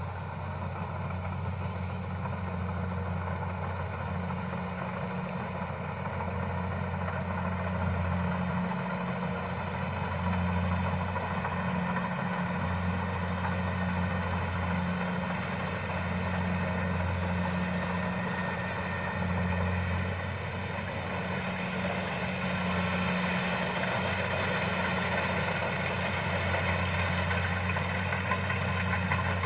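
Kubota DC-70 rice combine harvester's diesel engine running steadily while it cuts and threshes, a continuous low drone that swells and eases a little, with mechanical whir and rattle above it.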